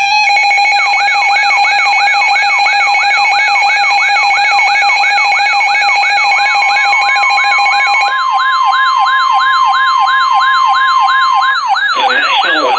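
Weather radio alert siren for an incoming warning: an electronic tone sweeping quickly downward about three times a second. It plays over a steady buzzy tone that cuts off about eight seconds in, and a plain steady alert tone sounds through the middle stretch.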